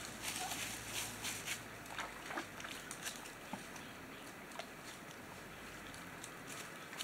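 A flock of wild turkeys foraging around a creek pool: faint rustling and pecking, with a few short soft calls. Gusts of wind in the leaves are heard in the first second and a half, then ease.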